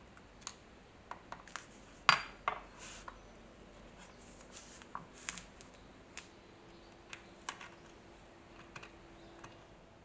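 Small metal clicks and ticks as steel tweezers handle and seat tiny brass lighter parts. The clicks are irregular, about a dozen of them, and the loudest comes about two seconds in.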